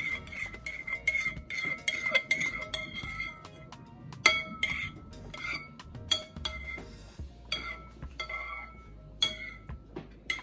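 Metal spoon stirring thick sauce in a ceramic bowl, clinking against its sides and rim, each clink ringing at the same few pitches. The clinks come quickly and almost continuously for the first few seconds, then as scattered single taps.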